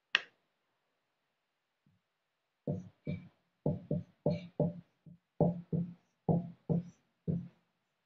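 A sharp click near the start, then about a dozen short tapping strokes of a marker on a wall-mounted whiteboard as a word is written by hand, each stroke with a low ring from the board.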